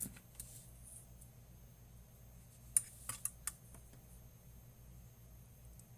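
A few light clicks and taps from handling a small electronic instrument on a workbench, four in quick succession about three seconds in, over a faint steady hum.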